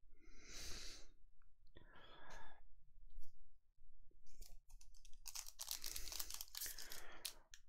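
Trading cards and their plastic wrapping being handled: a couple of soft rustles and scattered light clicks, then from about five seconds in a dense crinkling of plastic.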